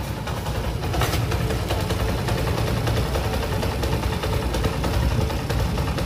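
Honda TMX 155's single-cylinder four-stroke engine running at idle after its breaker contact points were adjusted, now that it starts easily even when cold. It gets a little louder about a second in.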